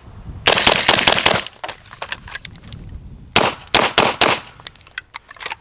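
Rapid gunfire in two strings: a fast string of shots about half a second in, then a pause with faint ticks, then a second string of about five quick shots near the middle.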